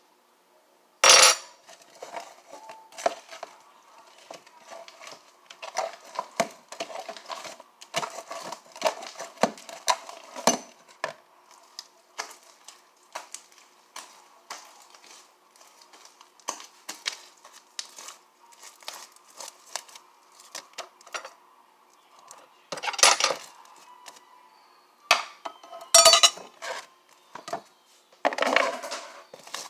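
Irregular clicks and clinks of a utensil against a bowl and containers being handled, with a few louder knocks about a second in and again near the end.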